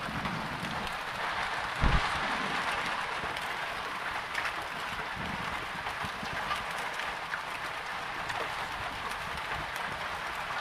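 Heavy rain falling steadily, an even hiss. A single low thump about two seconds in.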